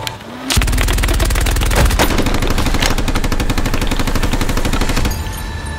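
A long burst of rapid machine-gun-style automatic fire from a large motorized Nerf blaster. A short rising whir comes first, the fire starts about half a second in and stops about five seconds in.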